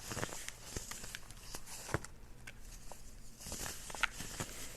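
A dry, crumbly powdery material being crushed or crumbled, giving irregular soft crackles and scattered small clicks over a faint hiss.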